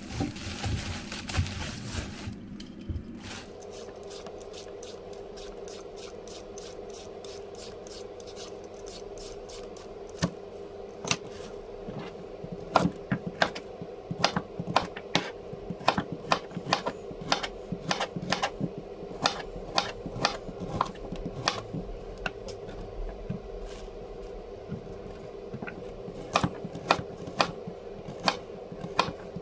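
A knife chopping on a board: irregular sharp taps, often several a second, thickening from about ten seconds in. Under them runs a steady kitchen-appliance hum that starts about three seconds in, after a short hiss.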